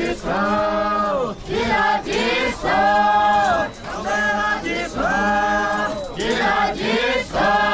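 A group of Naga tribal dancers, men and women, singing a traditional folk chant together in unison: loud, drawn-out phrases with short breaks between them.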